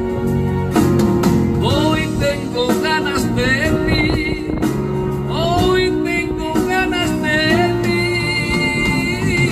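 Karaoke backing track of a ballad playing over a PA system, with a man singing along into a handheld microphone.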